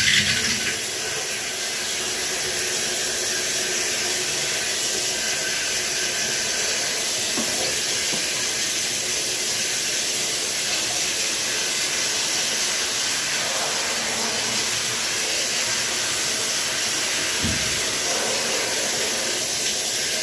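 Shower running into a bathtub: a steady hiss of water spray.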